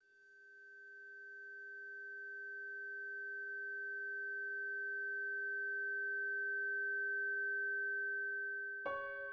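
Synthesized score: two steady pure tones, one low and one high, sustained and slowly swelling in volume. Keyboard notes come in near the end.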